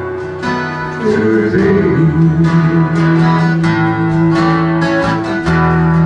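Acoustic guitar strumming with a harmonica coming in about a second in, playing long held notes that bend and waver over the chords.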